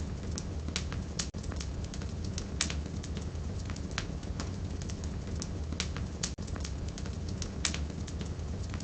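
Wood fire burning in a fireplace: steady low rumble with irregular sharp crackles and pops from the burning firewood. The sound cuts out for an instant twice.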